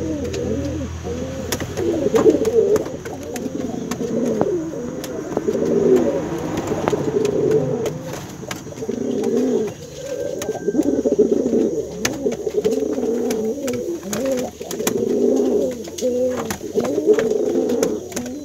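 Brown male domestic pigeon cooing over and over, a near-continuous run of rising-and-falling coos: a cock pigeon calling to his hen.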